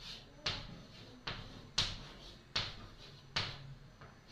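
Chalk writing on a chalkboard: a series of sharp taps and short strokes of the chalk against the board, about six louder ones spaced half a second to a second apart.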